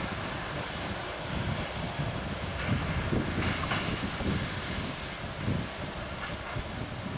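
Diesel engine of an SM42 diesel-electric shunting locomotive running under power as the locomotive moves along the track, a low uneven throb. A brighter, rattlier stretch comes in the middle.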